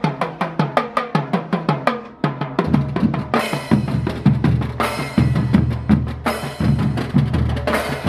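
Children's marching drum band playing: quick strokes on snare and multi-tenor drums over bass-drum beats. After a short break about two seconds in, hand cymbals crash about four times.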